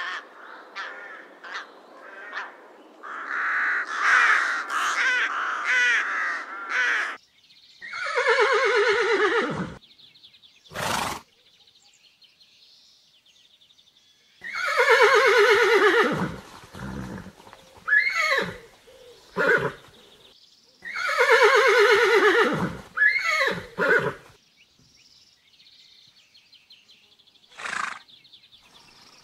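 A crow cawing in a quick run of calls for about the first seven seconds, then a horse whinnying several times. Each long neigh lasts about two seconds and falls in pitch, followed by shorter whinnies, with a few short noisy blows in between.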